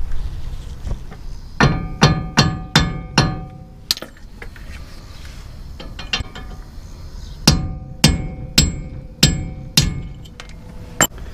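Heavy hammer driving a punch against a broken wheel stud to knock it out of the wheel hub, each blow a sharp metallic strike that rings. There are two runs of about five quick strikes a few seconds apart, then one more blow near the end.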